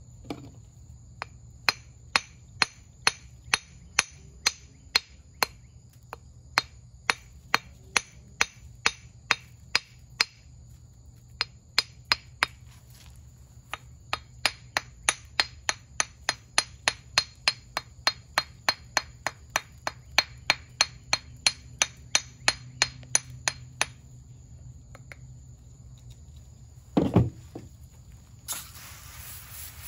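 Claw hammer tapping on a fossilized clam held in the hand, light sharp taps at about two a second with a few short pauses, chipping away the rock to expose the calcite crystals inside. A louder low thump comes near the end, followed by a steady hiss.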